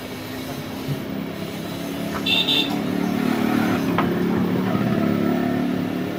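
A steady low motor drone that swells and then eases off, with a short high beep a little over two seconds in and a sharp click about four seconds in.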